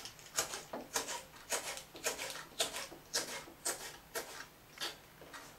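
Kitchen knife slicing hot chili pepper into thin rings, each stroke ending in a sharp tap on the board, about two a second, stopping about five seconds in.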